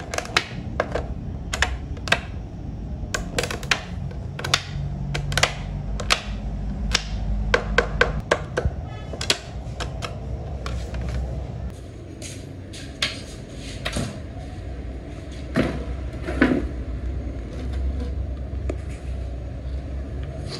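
Hand blade scraping and trimming a fibreglass motorcycle helmet shell: a run of sharp, irregular scraping strokes several a second, sparser in the second half, over a steady low hum.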